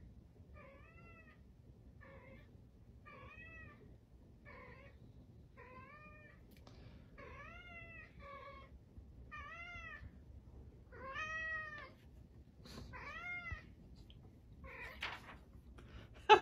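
Domestic tuxedo cat meowing over and over, about once a second, with a sheet of paper held in its mouth; the calls are loudest a little past the middle.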